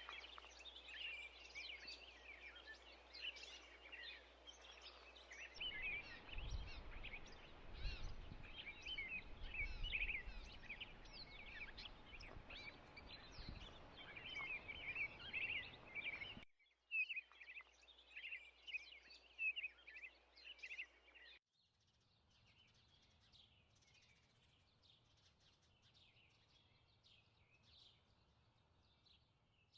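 Many small birds chirping densely, with a low rumble in the middle stretch. The sound cuts abruptly about 16 seconds in and again about 21 seconds in, after which the chirping is fainter.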